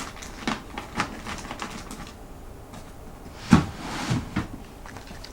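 A cat eating dry kibble from a dish: sharp clicks of pellets knocking on the dish and crunching bites, the loudest a little past halfway.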